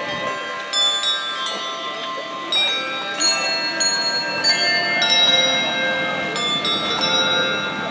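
A handbell choir ringing a Christmas carol: handbells of different pitches struck one after another, each note ringing on and overlapping the next as the tune goes along.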